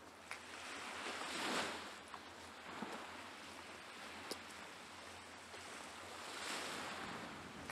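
Small Baltic Sea waves washing onto the sandy shore, rising and falling in two slow swells, with a light wind on the microphone.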